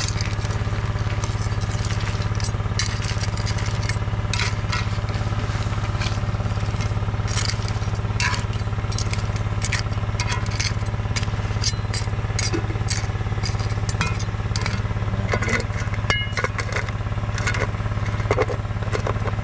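A metal spatula scraping and clinking against a metal wok as a pile of crabs and shrimp is stirred, the shells clattering in many short sharp clicks. Under it runs a steady low engine hum.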